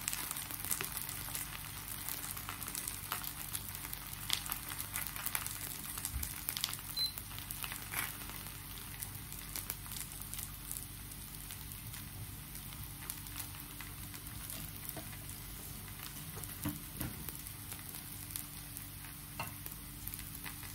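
A pancake frying in oil in a pan: a steady sizzle with scattered faint crackles and pops.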